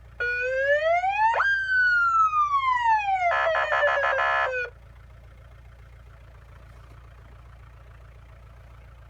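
Electronic siren sounding once for about four and a half seconds: a rising wail, a jump up in pitch, a long falling glide, then a rapid stuttering warble before it cuts off. A steady low engine idle hums underneath.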